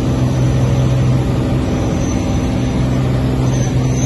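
Piper Turbo Arrow IV's turbocharged six-cylinder engine and propeller running steadily under climb power after takeoff, heard from inside the cabin.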